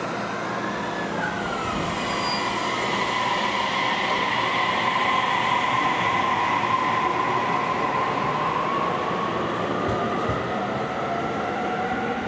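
Electric commuter train's traction motors whining over rail and wheel noise as it moves slowly through the station. The whine glides up and down at first, holds a steady tone, then starts rising again near the end.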